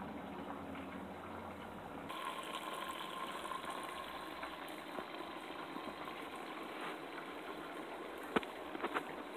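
Water running steadily in a small electric fountain with a pump, its light glowing in the basin. A few short knocks come near the end.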